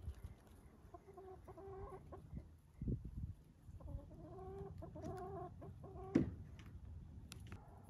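Hens clucking softly in two short runs of low, murmuring calls, with a dull thump about three seconds in and a louder one about six seconds in.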